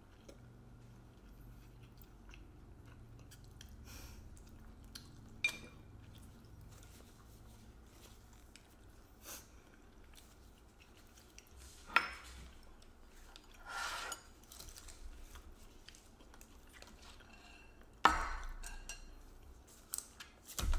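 Two people chewing and eating fried chicken wings by hand, with scattered clinks and knocks of china dishes and chopsticks on the table. The loudest is a sharp clatter of crockery set down about 18 seconds in.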